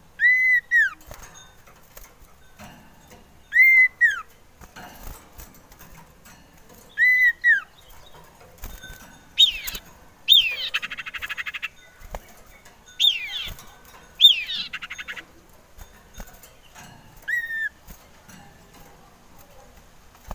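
Male common iora (cipoh/sirtu) singing: short arched whistled notes repeated every three to four seconds. Twice in the middle comes a longer phrase of falling notes that runs into a fast buzzing trill.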